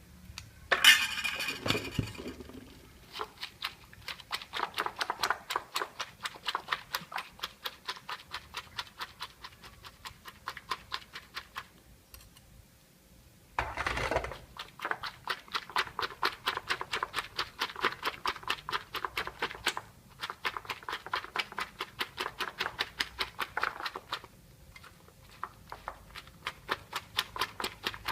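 Eggs being beaten in a bowl with a utensil: fast, rhythmic clicking of about six strokes a second, in runs broken by short pauses. A louder clatter comes about a second in and another about halfway through.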